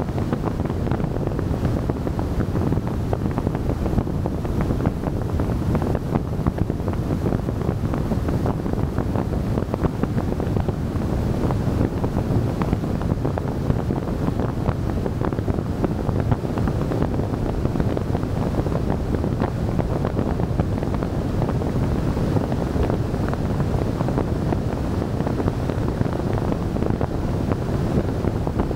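Steady wind rushing over the microphone of a camera on a moving car, with a low rumble of tyre and road noise.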